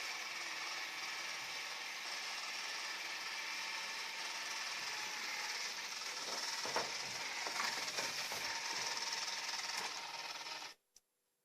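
Robot vacuum cleaner running with a steady whirring hiss and a few knocks against obstacles in the middle. The sound cuts out abruptly near the end.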